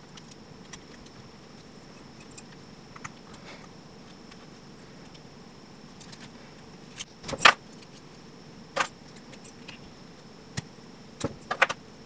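Brass padlock and its key handled in the fingers: light metallic rattling and sharp clicks as the key works in the cylinder. The loudest clicks come about seven and a half seconds in, and a quick run of clicks follows near the end.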